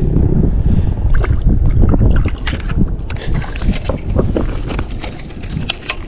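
Wind buffeting the microphone with a heavy low rumble, strongest in the first couple of seconds, while rod and paddle are handled on a plastic kayak: scattered knocks and sharp clicks throughout, a brighter cluster of clicks near the end.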